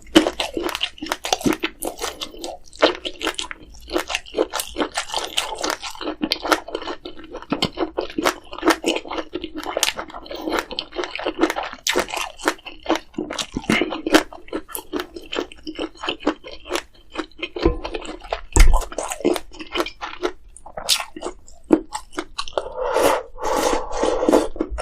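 Close-miked chewing and crunching of food, a dense run of crisp, wet bites and clicks.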